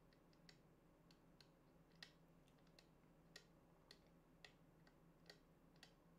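Faint, irregular clicks, two or three a second, from the buttons of an LED tube light being pressed, over a faint steady low hum.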